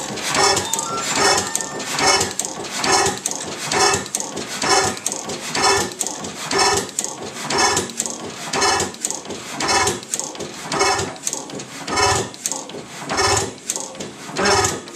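6 HP Otto sideshaft hit-and-miss gas engine running, with an even clanking beat about once a second.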